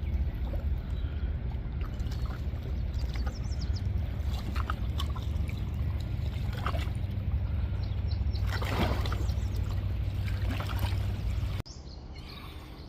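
Lake water lapping and splashing over a heavy, steady low rumble. Near the end the sound cuts to a quieter background with small birds chirping.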